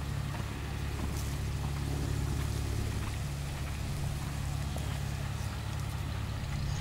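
A steady low rumble with no change throughout.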